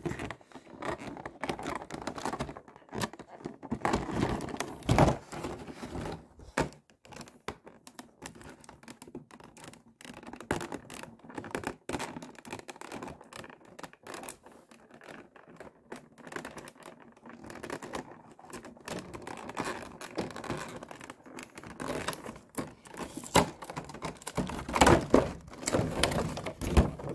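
Clear plastic packaging being handled: a plastic bag crinkling and a clear plastic blister tray crackling and clicking in irregular rustles, louder near the end.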